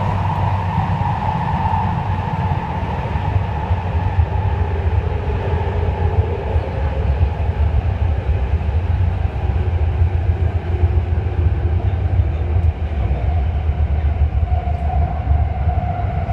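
Beijing Subway Line 6 train running through a tunnel, heard from inside the car: a steady low rumble with a faint whine that drifts slowly in pitch.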